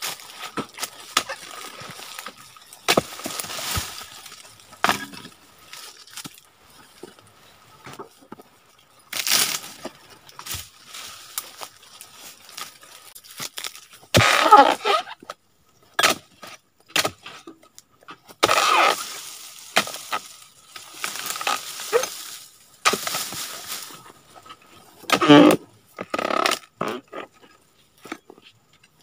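Dodos, a chisel-bladed pole cutter, jabbing into oil palm frond bases and fruit bunch stalks: irregular sharp cracks and crunches of fibrous wood, with short rustling spells between strikes.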